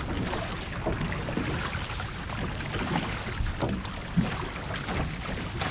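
Water washing along an outrigger canoe's hull, with the irregular splash of paddles catching the water on each stroke.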